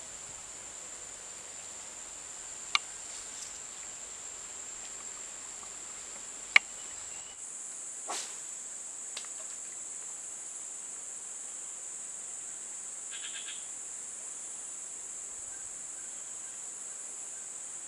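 Steady high-pitched drone of insects in the surrounding vegetation, with two sharp clicks about three and six and a half seconds in, the second the louder.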